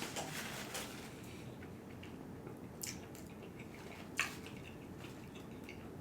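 Close-up chewing and biting of KFC fried chicken: wet mouth sounds and crisp crunches, with one sharp, loud crunch about four seconds in.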